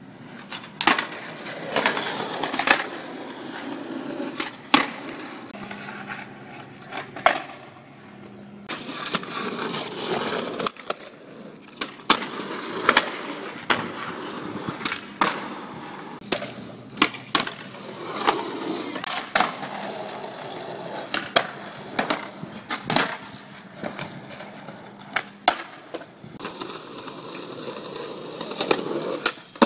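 Skateboard wheels rolling on concrete, broken by many sharp clacks of the board popping and landing.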